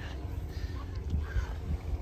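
Wind rumbling on the microphone, with soft footsteps on a rocky dirt trail.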